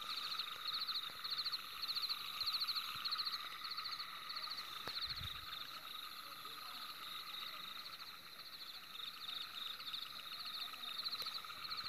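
Night chorus of calling frogs: short trilled calls repeat over and over, with a steady high insect hiss above them.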